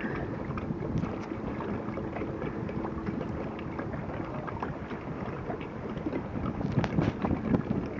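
Wind buffeting the microphone over choppy lake water, with a faint steady engine hum in the first few seconds and a few sharp knocks about seven seconds in.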